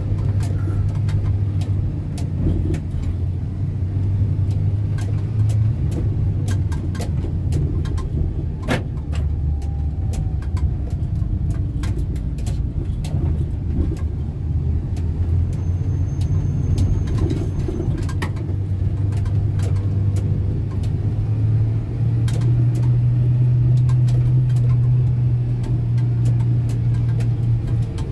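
A small van's engine and road noise heard inside the cab while driving slowly, a steady low drone that rises a little in pitch near the end. Scattered light ticks and rattles from the cab run through it.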